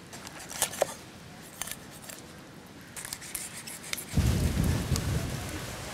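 Raw chicken being cut into pieces: a few short, sharp cutting clicks and knocks. About four seconds in, a sudden low rumble is the loudest thing and lasts over a second.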